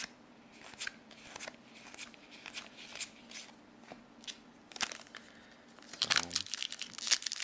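Trading cards flicked and slid against each other in the hand, with a few soft snaps, then from about six seconds a foil booster pack being crinkled and torn open.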